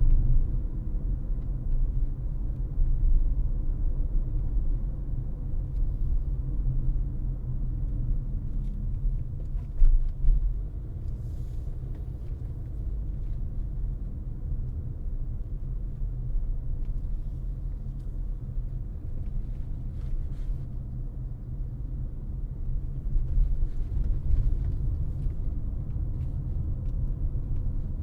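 Low, steady road rumble of a car being driven, with a brief louder thump about ten seconds in.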